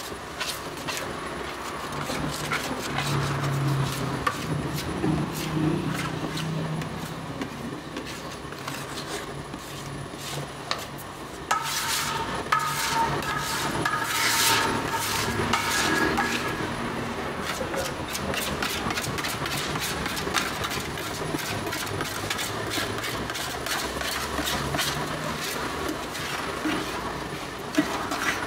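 Spiral dough mixer running with a steady low hum while a hand scraper rubs and knocks against the steel bowl wall in frequent sharp clicks. A set of higher steady tones comes in for about five seconds near the middle.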